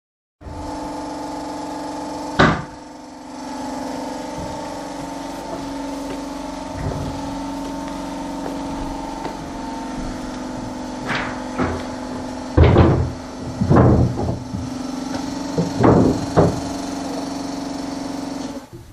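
Building-site hammering on timber: a single blow about two seconds in, then an irregular run of knocks in the second half, over a steady machine hum.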